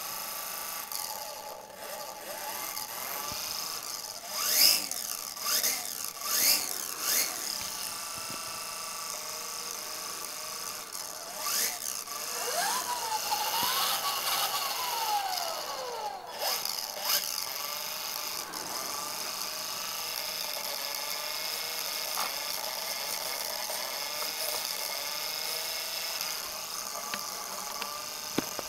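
Electric motor and spinning rotors of an E-sky HoneyBee CP2 RC helicopter, a steady whine. There are several louder whooshes about four to seven seconds in, and the motor pitch rises and then falls in the middle as the throttle changes.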